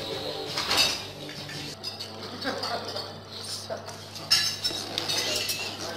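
Cutlery clinking against plates and cups, with a few sharp clinks. Background music plays for the first couple of seconds, then stops.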